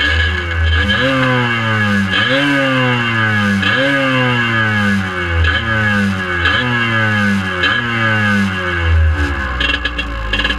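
Two-stroke dirt bike engine revved in a string of throttle blips while standing still, each rev rising sharply and sinking slowly back, about once every second and a half.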